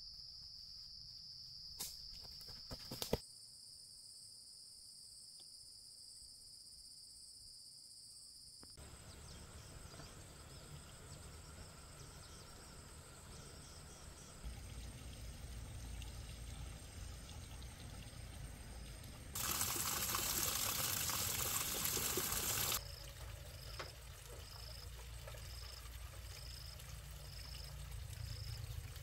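Outdoor sounds changing in abrupt cuts: a steady high buzz with two sharp clicks near the start, quieter stretches, a few seconds of loud pouring or rushing water about two-thirds of the way through, then a high chirp repeating about once a second.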